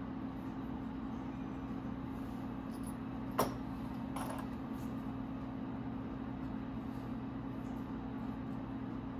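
Steady low background hum, with one sharp click about three and a half seconds in and a softer brief brush of sound a second later.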